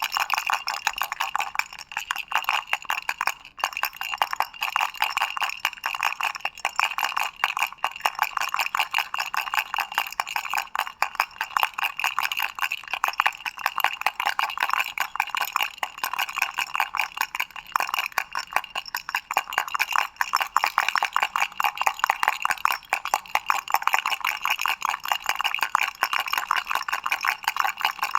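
Doraemon baby rattle shaken continuously: a fast, unbroken stream of small clicking and rattling.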